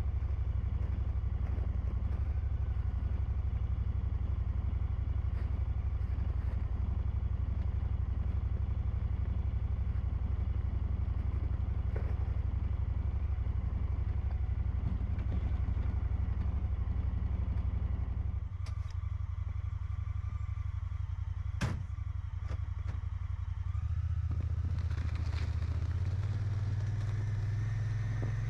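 Side-by-side utility vehicle's engine running steadily at idle, with two sharp metallic knocks about two-thirds of the way through, likely the trailer being hitched. Near the end the engine note rises as the vehicle pulls the trailer away.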